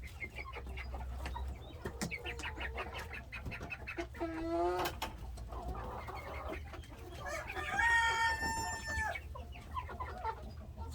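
A flock of chickens clucking, with a rooster crowing once about eight seconds in, a long call held at one pitch.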